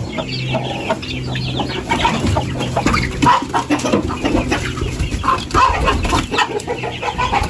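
A flock of about thirty young chickens peeping and cheeping, many short high calls overlapping without a break.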